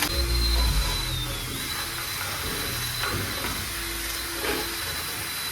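Power tool spinning a wire wheel against metal, scrubbing off grime and old finish: a steady hiss with a high motor whine that dips briefly under load about a second and a half in.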